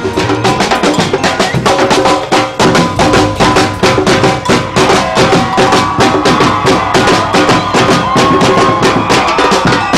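Background music with a fast, busy percussion beat of woodblock-like clicks and drums over held pitched tones.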